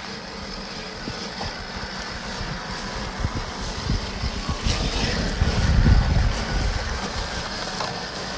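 Axial SCX10 III Gladiator RC crawler driving over rough ground: its motor runs while the tyres crackle and knock over the terrain. The sound builds to a peak about six seconds in, then eases off.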